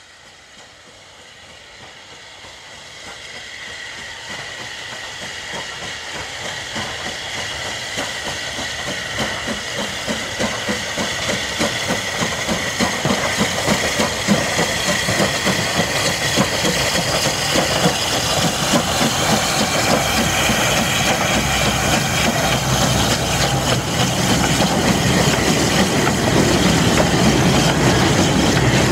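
SR Q class 0-6-0 steam locomotive working a goods train, its exhaust chuffing and steam hissing over the rattle of the wagons on the rails, growing steadily louder as it draws near.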